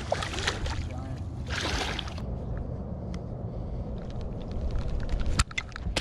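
A hooked bowfin thrashing and splashing at the water's surface beside a boat, with a rushing splash about a second and a half in and a few sharp clicks near the end, over a steady low rumble.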